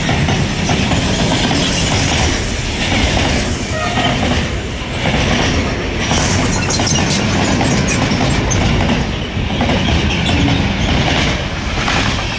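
Freight train of high-capacity sliding-wall box wagons passing close by, with a steady rumble and wheel clatter over the rails. Brief bursts of higher wheel noise come and go several times.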